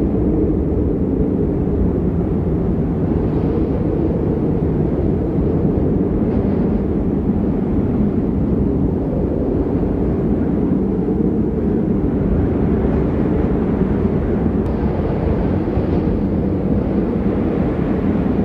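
Snowstorm ambience sound effect: a steady, low rumble of wind noise, loud and continuous.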